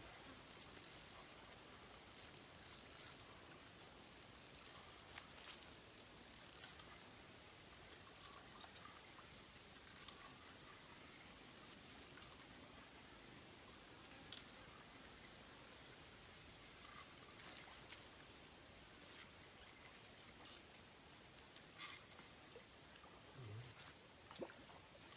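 Insects chirring in two steady high-pitched drones, with scattered faint ticks and rustles.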